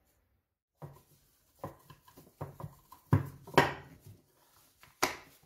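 Clatter of a plastic food storage box and its snap-on lid being fitted and pressed shut: a run of knocks and clicks, loudest a little past three seconds in and again about five seconds in.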